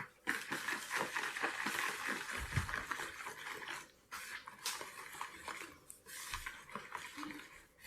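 Cake batter being mixed in a bowl as flour is added, a wet, clicking stirring sound that pauses briefly twice.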